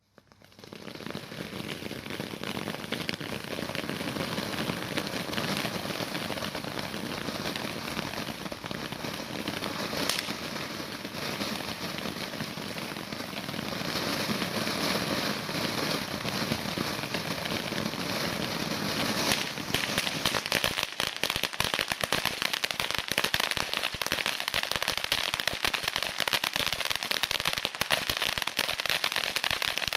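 Fireworks cake firing: a dense, continuous crackle of many small shots that grows louder about halfway through. In the last third it turns into rapid, separate sharp bangs.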